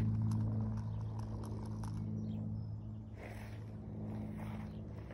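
Spinning fishing reel being cranked to reel in the line, with faint quick clicks, over a steady low hum.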